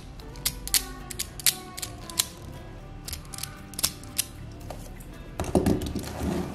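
Hard plastic parts of an Optimus Prime action figure clicking and ratcheting as they are handled, with sharp single clicks and a denser run of rattling clicks about five and a half seconds in.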